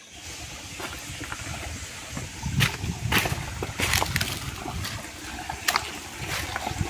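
Footsteps over stones and dry fallen leaves in a shallow rocky streambed, with a string of sharp leaf crackles from the middle on, over a steady hiss of trickling water.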